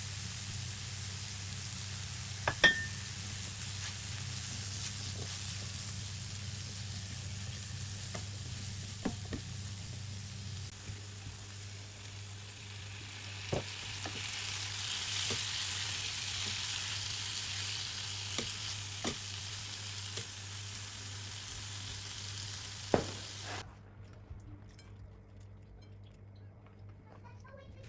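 Potatoes and aubergine frying in a pan with a steady sizzle, with a utensil clicking against the pan now and then as it is stirred. The sizzle grows a little stronger midway and cuts off suddenly near the end.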